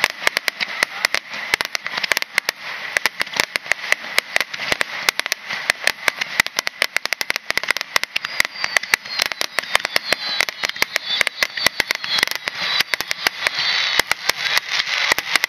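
Starmine fireworks barrage: shells launching and bursting in rapid succession, many sharp bangs a second, over a constant hiss and crackle of sparks. Faint whistles rise through the barrage about halfway through.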